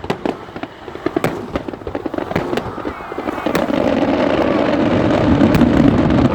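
Fireworks finale: many sharp bangs in quick succession, then from about halfway a dense, continuous crackle that grows louder toward the end.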